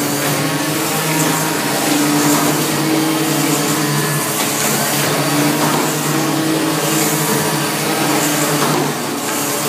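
Saturno 2 automatic cardboard-cutting table running, a steady machine whir whose hum shifts in pitch every second or so as the tool heads travel along the gantry.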